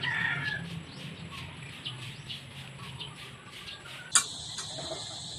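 Birds chirping repeatedly with short, high calls over a low hum. About four seconds in there is a sharp click, after which a steady high drone of insects starts.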